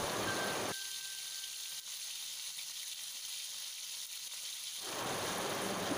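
Salted fish frying in a wok of hot oil, a steady sizzle.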